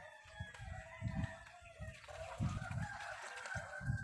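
A rooster crowing, the longest call held through the second half, with dull low thuds underneath.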